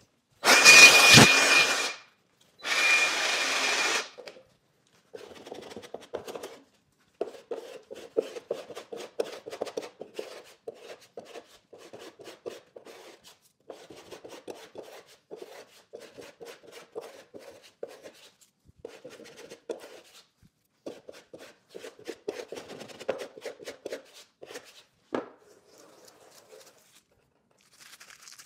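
Two short bursts of a power tool, each a little over a second, with a steady whine in them. Then a long stretch of faint, irregular rubbing and scraping.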